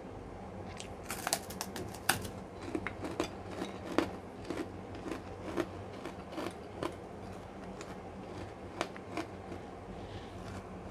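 Crunching of a crisp kerupuk cracker being bitten and chewed: a run of sharp crunches, a couple a second, for several seconds, then two more near the end, over a low steady hum.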